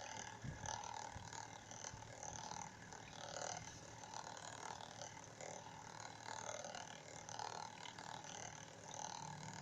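Faint water gurgling and swirling from a water-tornado vortex, coming in irregular glugs.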